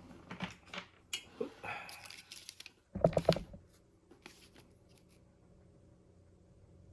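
Rustling and clicking of small tools and objects being handled, with a brief rattle about three seconds in that is the loudest moment, then a faint steady hum.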